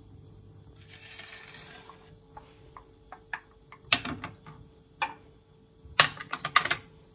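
Hard objects clinking and knocking, like dishes or utensils being handled: a few light clicks, a sharp clink about four seconds in and another about five seconds in, then a quick run of clinks near the end.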